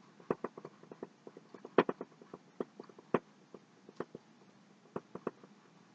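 Paintbrush dabbing and stroking on a stretched canvas: a string of faint, irregular light taps and scratchy ticks.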